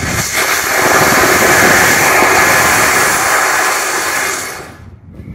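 Sugar Shot 75 mm five-grain sugar-propellant solid rocket motor firing: a loud, steady rushing roar for about four and a half seconds that fades and stops as the motor burns out. The burn 'sounded real good'.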